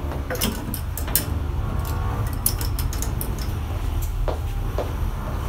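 Clothes hangers clicking and scraping on a shop's clothing rail as garments are hung up, a string of short sharp clicks over a steady low rumble.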